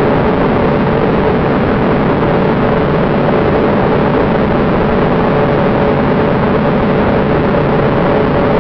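Steady in-flight drone of a small jet's engine and rushing airflow, with a steady two-note whine that holds level throughout.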